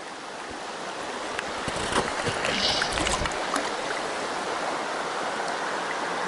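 Shallow stream running over stones, with splashing in the water that grows louder from about two seconds in and peaks in a stronger splash about three seconds in.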